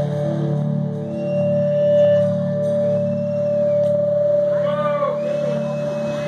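A live rock band holding a long sustained note: one steady high tone ringing over a low sustained drone. A short whooping voice glides up and down about five seconds in.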